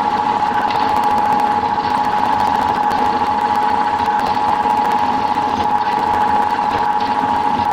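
Milling machine cutting steel: a steady whine from the spindle and cutter, with a fine rapid chatter over it.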